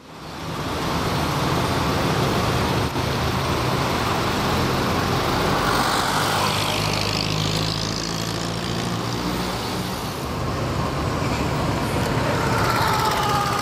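Street traffic: car engines running close by, fading in at the start, with a vehicle passing by about halfway through and a falling engine note near the end.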